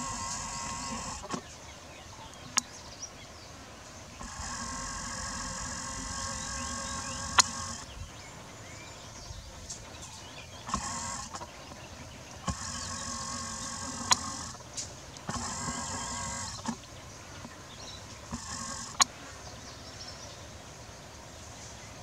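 A small motor whining in stretches of a second to a few seconds that start and stop abruptly, with about five sharp cracks spaced through it.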